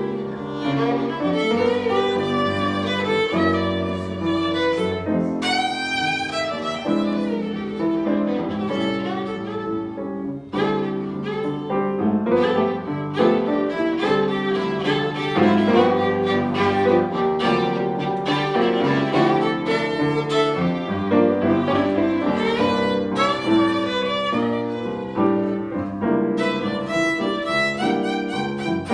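Instrumental music led by a violin, with wavering high notes over a chordal accompaniment and a steady low part.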